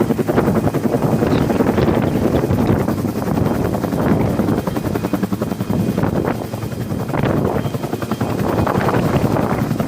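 Bell 212 helicopter running close by, its two-bladed main rotor beating rapidly and steadily under the turbine noise.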